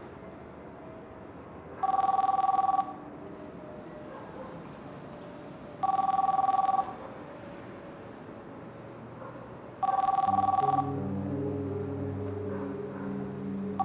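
Mobile phone ringing: two-tone rings about a second long, one every four seconds, three times, with a fourth starting at the end. Low music comes in under the third ring.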